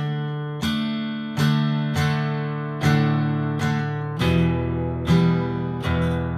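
Acoustic guitar strummed in chords, a fresh strum about every three-quarters of a second, each chord ringing on until the next.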